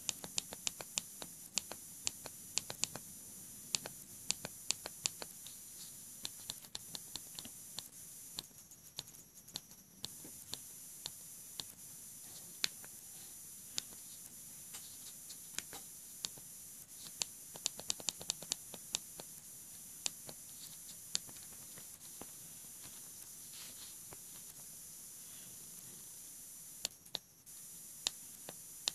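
Keys on a Samsung Galaxy Golden flip phone's keypad clicking as the navigation pad is pressed over and over, in quick runs of several clicks a second with short pauses between, over a steady faint hiss.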